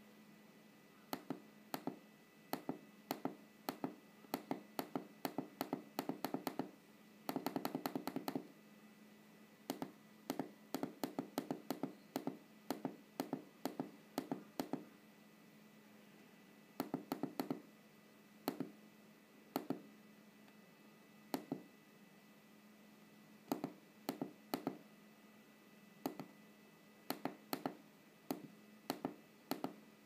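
Small tactile push-button switches clicking as they are pressed over and over, in runs of quick clicks with pauses between, and a rapid flurry about seven seconds in. A faint steady hum runs underneath.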